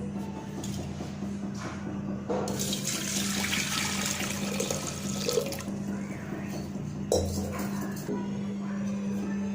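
Water poured from a small pot (sombu) into a pan of roasted spices on the stove: a long pour about two seconds in, then a shorter one near the end.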